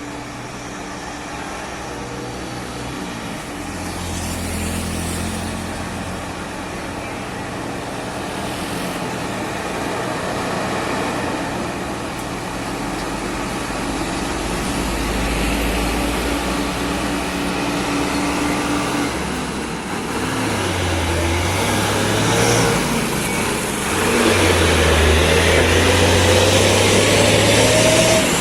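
Heavy diesel truck engines working up a steep climb, growing steadily louder as they come closer. A rising whine comes in over the engine note near the end.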